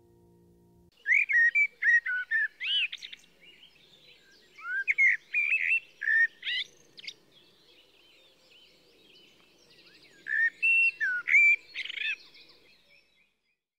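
A songbird singing three short phrases of clear whistled and warbling notes, with pauses of a second or more between them.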